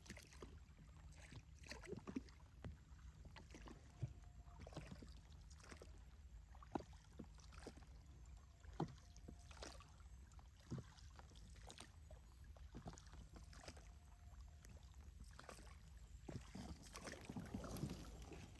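Faint, irregular knocks and water splashes of a small boat being paddled, a stroke or knock every second or two.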